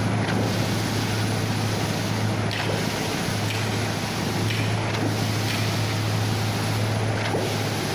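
Small petrol engines on concrete-pouring equipment running steadily, a continuous low drone with a broad rush of noise over it.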